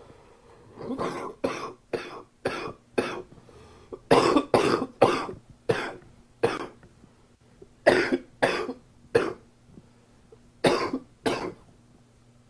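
A man coughing from a summer cold, in four fits of short coughs: about five, then about six, then three, then two.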